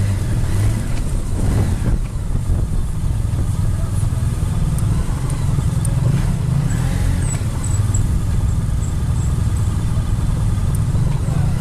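Large adventure motorcycle engine running at low speed in a steady low rumble, heard close from the bike it is mounted on.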